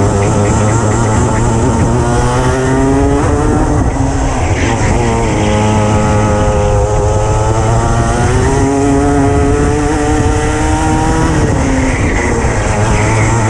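Racing kart engine heard close up from the seat, revs climbing along each straight and dropping as it brakes into the corners, about three times over.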